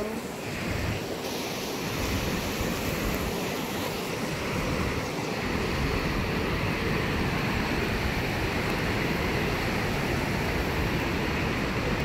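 Flood-swollen mountain stream rushing steadily, its current strong with typhoon rainwater.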